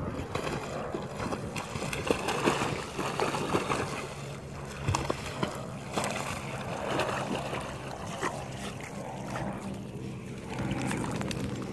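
Border collie paddling and splashing through shallow water: irregular sloshing with many short sharp splashes, busiest in the middle and easing off near the end, over a steady low hum.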